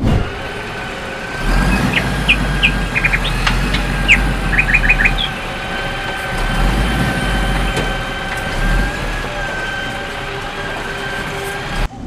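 Steady truck-like engine running with a low rumble, and a few short high chirps between about two and five seconds in.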